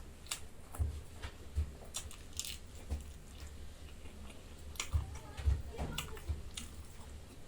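Close-up eating sounds of a person chewing mouthfuls of rice and dal: wet mouth smacks and clicks at irregular intervals.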